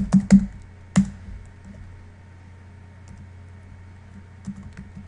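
Computer keyboard typing: a quick run of keystrokes in the first second, then a pause and a few lighter taps near the end.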